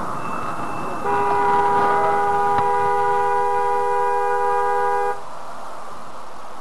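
Car horn held in one long blast of about four seconds, starting suddenly and cutting off, over steady road noise.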